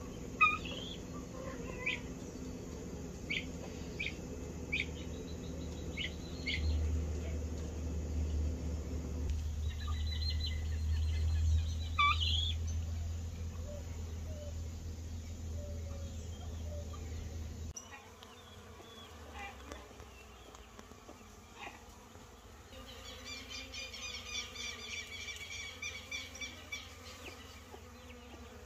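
Farmyard ambience: insects buzzing, with short bird chirps and calls scattered through it, and a fast, evenly repeating high call about three-quarters of the way through.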